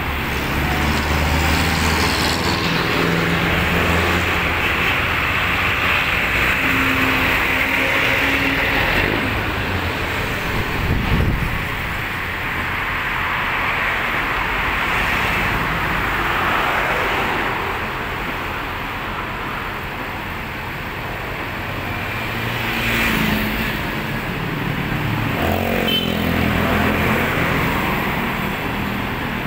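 Road traffic passing, with cars swelling in and out, over the steady running of a truck-mounted crane's engine.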